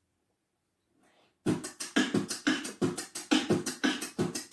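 Vocal beatbox beat, the 'Bitte die kaputte Katze' rhythm, built on the words 'bitte die kaputte Katze'. It starts about one and a half seconds in, after near silence, as a fast, steady run of sharp percussive mouth sounds.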